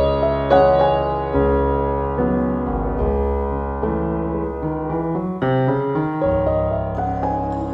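Slow background piano music, sustained chords changing every second or so and slowly growing softer.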